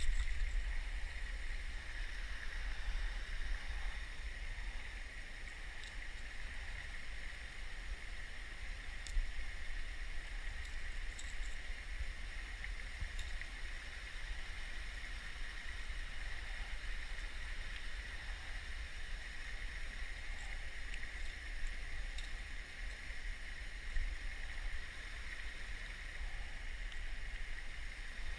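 Steady outdoor rushing noise with a low rumble, and a few faint clicks now and then.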